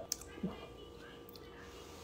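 A few faint clicks of a metal fork against a plastic dumpling tray, with a short closed-mouth 'mm' about half a second in, as a cheesy soup dumpling is lifted to the mouth.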